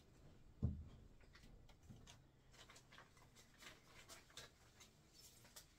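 Near-silent room with a single dull thump a little over half a second in, then faint scattered ticks.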